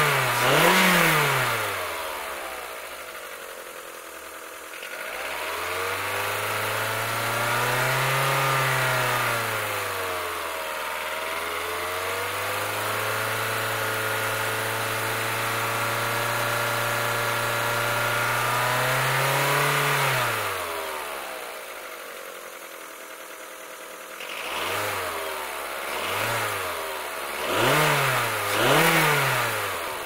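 VW Golf IV 1.4 75 PS four-cylinder petrol engine being revved: two quick throttle blips at the start, then idle, then revs raised and held for about fifteen seconds with a brief dip partway. It drops back to idle and gives four more quick blips near the end.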